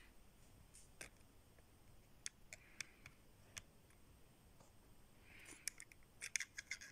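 Mostly near silence with a few faint, sharp clicks, then a quick run of clicks near the end: a metal blade tapping and prying at the plastic front suspension of a 1:24 scale RC drift car.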